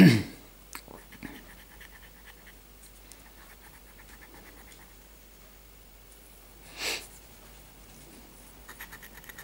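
A coin scratching the latex off a bingo scratch card in faint, irregular short strokes. A loud breath-like sound comes at the start and a short puff of breath about seven seconds in.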